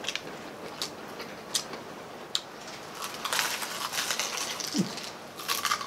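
Crunching bites into crispy deep-fried pork knuckle (crispy pata) and fried chicken. A few sharp crackles come about a second apart, then two longer stretches of dense crunching.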